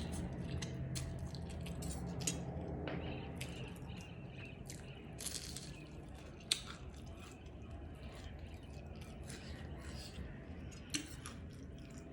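Close-miked eating: irregular chewing and crunching with wet mouth clicks and smacks.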